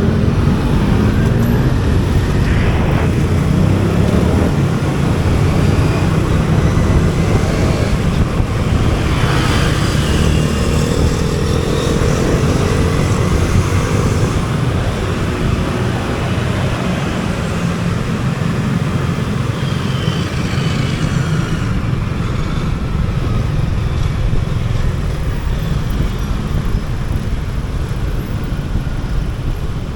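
Motorcycle riding through city traffic: a steady, loud rumble of engine and road noise, with the engine pitch rising for a few seconds about a third of the way in.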